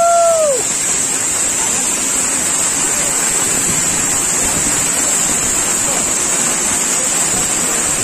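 Waterfall pouring close by: a steady, loud rush of falling water splashing onto rocks and into the pool. A person gives a short exclamation right at the start, its pitch rising then falling.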